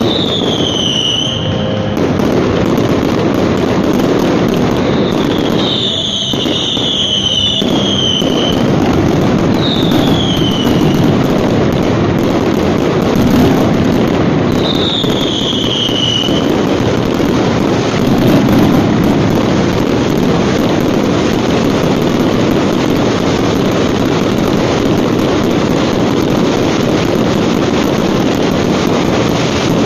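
Fireworks display: a dense, continuous barrage of bangs and crackling, with several short falling whistles in the first half.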